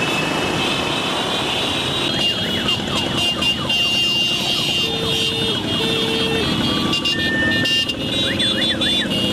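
Motorcycles and cars of a slow road procession, engines running together with horns honking throughout. There are two short horn blasts about five seconds in, and siren-like sweeping tones that come and go.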